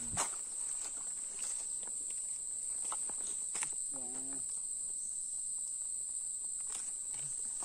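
Steady, high-pitched drone of insects, with a few light clicks and a brief snatch of a person's voice about four seconds in.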